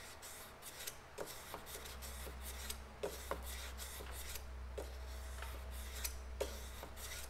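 400-grit wet/dry sandpaper wrapped around a wooden dowel rubbing back and forth along the inside curve of a spoon knife's blade, sharpening it. The strokes are short, quiet scrapes with small clicks at irregular intervals.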